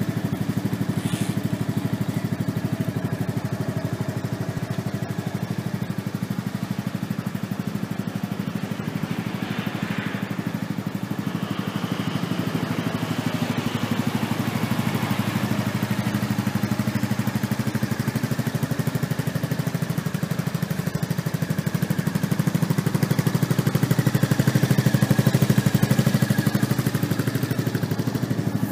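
Honda Forza X big scooter's single-cylinder four-stroke engine idling steadily through an aftermarket exhaust, at about 2,000 rpm. It grows somewhat louder for a few seconds near the end.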